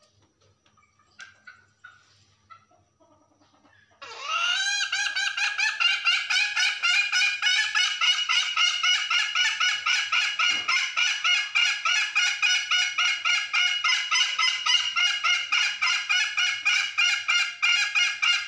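Hen giving a long, unbroken run of rapid, evenly repeated cackling notes, the 'ngekek' call, which starts suddenly about four seconds in after a few faint clucks. The keeper takes this call for a hen calling a rooster.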